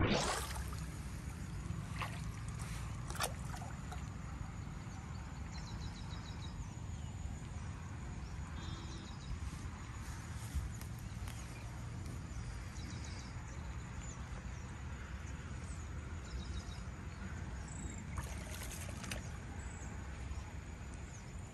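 Steady sloshing and trickling of water with a low rumble under it. A couple of faint clicks come early, and short faint high chirps come now and then.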